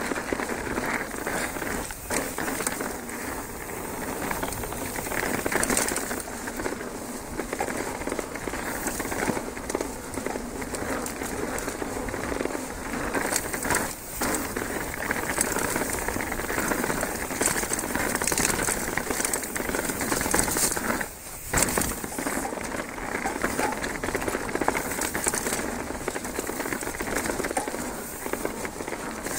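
Mountain bike tyres rolling fast down a dirt forest trail covered in fallen leaves: a steady crackling rush. It dips briefly about three-quarters of the way through, then comes a loud knock.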